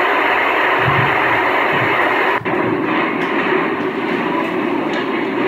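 Steady roar of storm wind and driving rain, heard through a screen's speakers. It dips briefly about two and a half seconds in, then goes on slightly duller.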